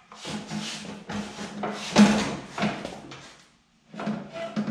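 Clattering and clunking of a Troy-Bilt walk-behind leaf blower being shifted into line with the hitch bars to a riding mower, metal parts knocking together. The loudest clank comes about two seconds in, and there is a short pause a little later before more knocks.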